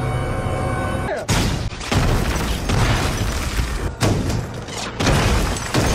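Tank cannon firing in a film battle sound mix: several heavy booms, the first about a second in and others near two, four and five seconds in, each trailing off in a long rumble. A low droning music bed plays under the opening second.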